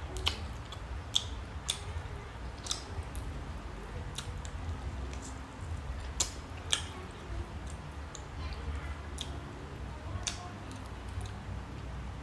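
Close-miked eating: chewing with irregular sharp mouth clicks and smacks, over a low steady hum.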